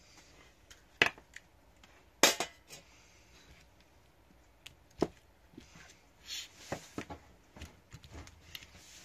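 Handling noise: sharp clicks and taps of tweezers and a plastic model railcar floor being picked up, turned over and set down on a desk. The loudest clicks come about a second in and just after two seconds, with smaller taps and rustles after.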